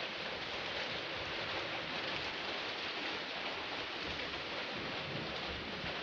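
A steady, even hiss with no distinct knocks or voices in it.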